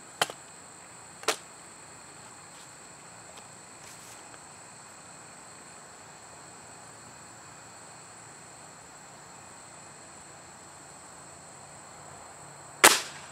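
Break-barrel .177 air rifle: two sharp clicks near the start as it is cocked, then near the end a single loud crack as it fires a pellet. Insects trill steadily in the background.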